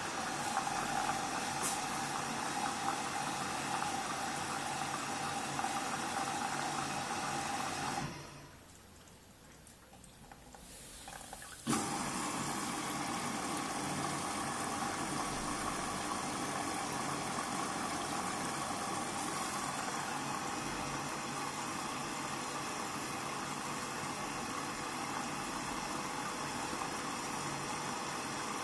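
Hoover washing machine filling with water at the start of a 14-minute quick wash: water rushing steadily into the machine. About eight seconds in the flow dies away for a few seconds, then starts again suddenly with a click.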